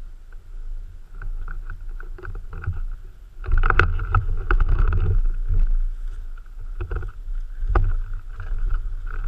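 Low rumbling movement noise on the microphone with scattered sharp clicks and knocks, getting louder about three and a half seconds in.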